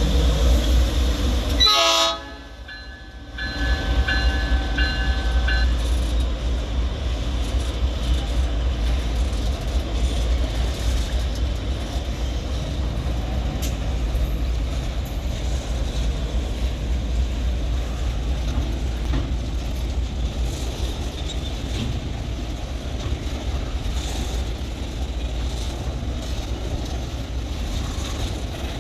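Diesel freight locomotive's multi-tone air horn sounding, with a short break about two seconds in, and stopping around six seconds. Under it and for the rest of the time, the steady low rumble of the locomotives and loaded container wagons rolling past.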